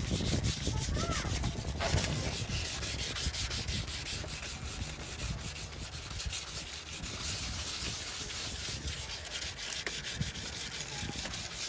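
Fine 3200-grit wet sandpaper on a backing pad rubbed back and forth over a plastic car headlight lens, making a scratchy hiss of quick, light strokes as the sun-damaged, clouded surface is sanded down.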